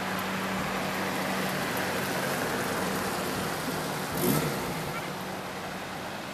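A vintage car driving past, its engine giving a steady hum, with a brief louder burst of noise about four seconds in, followed by quieter street traffic.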